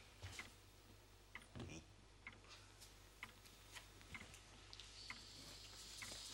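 Faint ticking clock, about one tick a second, over quiet room tone with a low steady hum.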